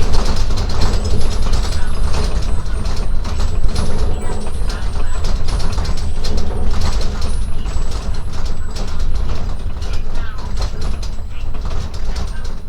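A building and loose objects rattling, clattering and creaking without pause under strong earthquake shaking, over a heavy low rumble. The loud recording is overloaded and distorts.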